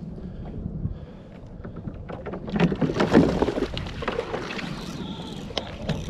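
A big California halibut thrashing and splashing at a kayak, a loud burst of splashes and knocks starting about two seconds in, over a steady background of wind and water.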